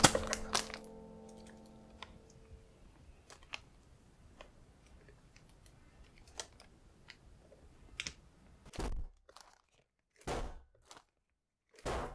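Parchment paper crinkling and rustling as it is handled and pulled at the edges of a square metal cake tin, with small clicks and taps. Three louder rustles of about half a second each come near the end.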